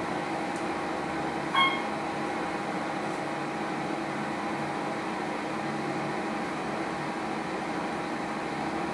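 Otis scenic elevator cab travelling slowly, its drive giving a steady hum with a few constant tones. A short high beep sounds once about one and a half seconds in.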